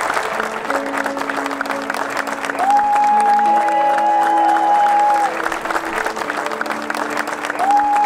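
Guests applauding, mixed with slow music of long held notes: a high melody note that slides up into place twice, over lower sustained notes.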